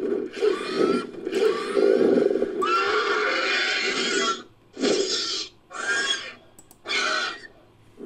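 Fictional giant-vulture creature sound effect, layered from vulture calls and other creature sounds. A long, harsh screeching call runs for about four seconds with brief breaks, then three shorter calls come about a second apart.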